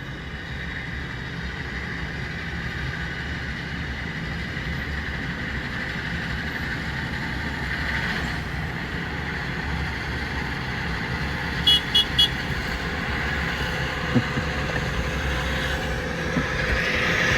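Large engine running steadily with a low drone. About twelve seconds in there are three quick, short high beeps.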